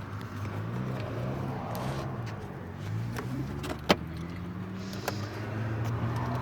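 Plastic clicks and light rattles as the cabin air filter cover behind the glove box is squeezed at its two tabs and worked loose; the sharpest click comes about four seconds in. A low hum that drifts slightly in pitch runs underneath.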